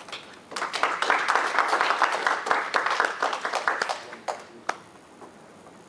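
A small group applauding for about three and a half seconds, dying away with a couple of last single claps.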